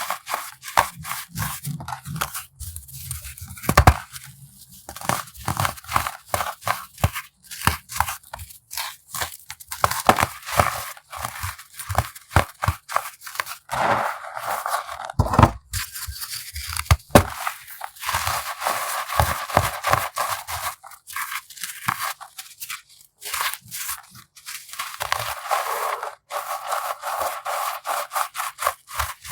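Dried, formed baking soda being crushed: a dense run of crisp crunches and crackles, with gritty scraping in between.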